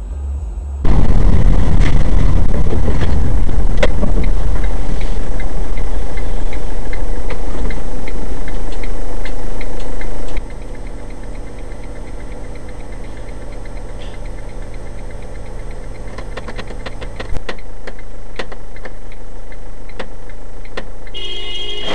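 Vehicle engine and road noise, loud and steady, with abrupt changes in level about a second in, about ten seconds in and about seventeen seconds in.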